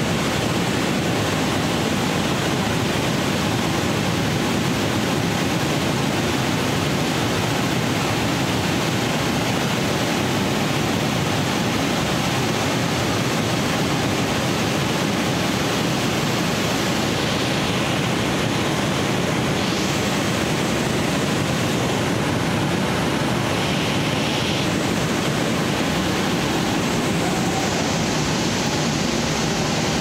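Waterfall plunging through a narrow rock gorge: a loud, steady rush of water.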